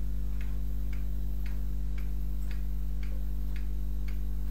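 Regular clock-like ticking, about two ticks a second, over a steady low electrical hum.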